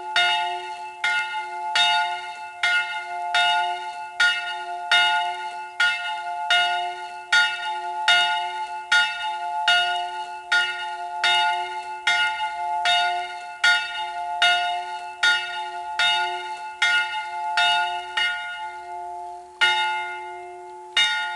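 A church bell swinging in its tower, its clapper striking about twice a second over a steady ringing hum. Near the end the strikes stop and two last, spaced-out strikes follow as the bell swings down and the ringing dies away.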